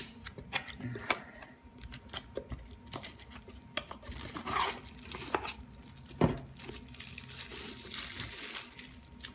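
Cardboard box flaps being pried open and handled, with scrapes, rustles and small clicks, then crinkling plastic wrap as the item inside is pulled out near the end.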